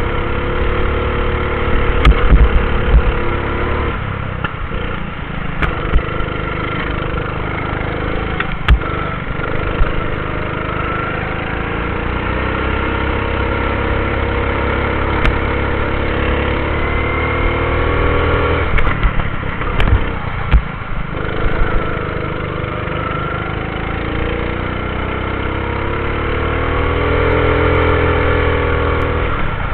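Go-kart engine heard from on board while lapping. Its pitch drops as the kart slows for corners and climbs again on the straights. A few sharp knocks come through along the way.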